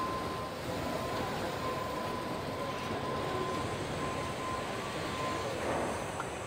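Steady machinery noise of an automated car-body assembly line where industrial robots are working on a steel van body, with a faint steady whine running through it.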